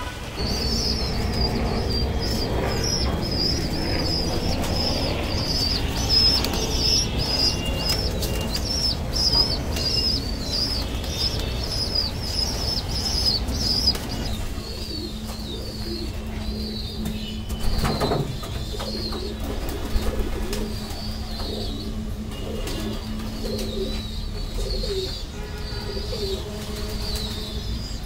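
Pigeons cooing and flapping their wings, with a fast run of high chirps over the first half that grows fainter later. A steady low hum runs under the second half.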